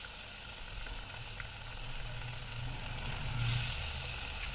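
Kuttu (buckwheat-flour) batter pakoras sizzling in hot oil as they start to deep-fry. The sizzling grows louder about three seconds in, over a low hum.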